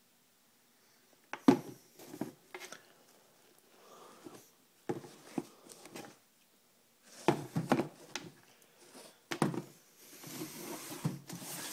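Handling noise close to the microphone as sneakers and phone are moved about: a series of irregular knocks, scrapes and rubs, with a longer rustling stretch near the end.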